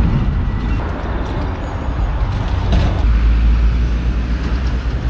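A heavy vehicle's engine running, heard as a steady low rumble that grows stronger about three seconds in.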